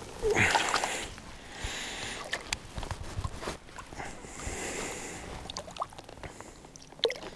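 Water splashing and trickling in a landing net as a small brown trout is handled in it, with a louder splash in the first second and the wet mesh rustling.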